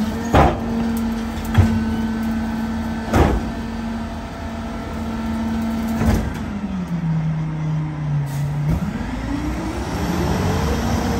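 Mack Granite garbage truck's diesel engine held at raised revs while the McNeilus rear loader's hydraulic packer blade compacts the load, with several sharp knocks from the packing mechanism. About six seconds in the revs drop to idle, then climb again near the end.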